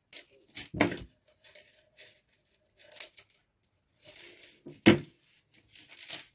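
Handling noises: irregular rustling and scraping, with two heavier knocks about a second in and near five seconds, as a jewellery chain and tools are handled.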